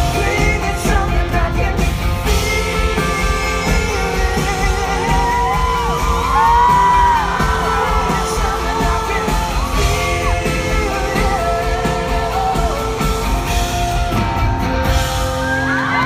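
Live pop-rock band playing loudly, with a red electric guitar, drums and a male lead vocal holding long, wavering notes, heard from among the audience in a large hall.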